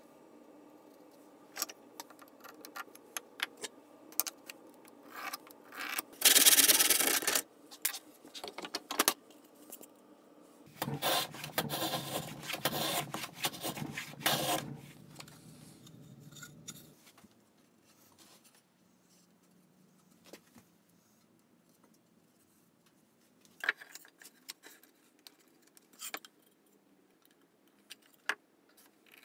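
Hand plane trimming the end of an oak slat: one long loud hissing stroke about six seconds in, then a run of rasping strokes a few seconds later. A few light wooden knocks follow near the end.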